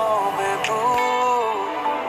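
Background music: a male singer singing a Farsi pop song over instruments, his voice sliding and wavering between notes.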